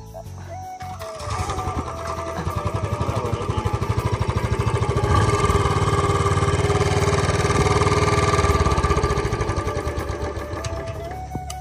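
A motorcycle engine running with an even pulsing beat. It grows louder over the first few seconds, holds steady, then fades away near the end.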